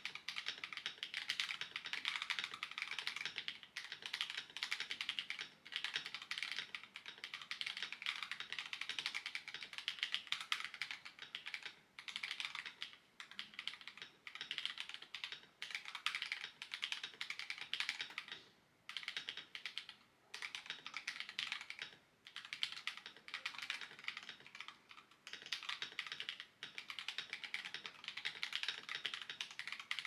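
Typing sound test on a Nuphy Halo96 mechanical keyboard with its stock Gateron Baby Kangaroo switches and thick keycaps. Quick runs of keystrokes, a few seconds each, with short pauses between them.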